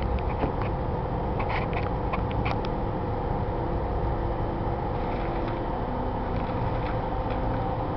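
Off-road rig's engine running steadily at low speed while it crawls over rocks, heard from on board. A cluster of sharp clicks and rattles comes about one and a half to two and a half seconds in, with a few fainter ones later.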